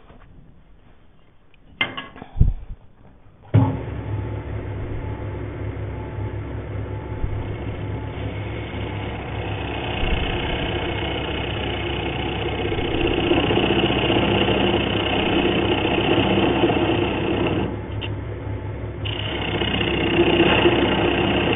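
A couple of clicks, then a wood lathe's motor starts and runs with a steady hum. A hand-held turning tool then cuts into the end grain of the spinning hardwood blank, hollowing out a recess, with a hiss of cutting that grows, drops away briefly near the end and comes back.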